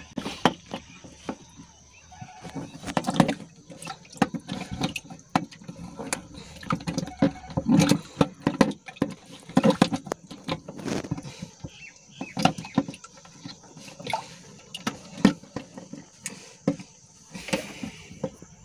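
Irregular clicks, knocks and rustling of hands working on a plastic water tank while an overflow float switch is tightened into a hole in its wall, with water splashing inside the tank.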